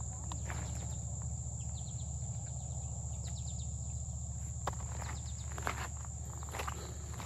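Steady high insect chirring over a low even rumble, with a few short chirps and several footsteps or knocks in the second half.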